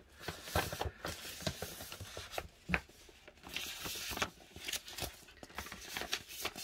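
A cross stitch kit being handled and sorted through: irregular rustling and crinkling with many small taps and clicks.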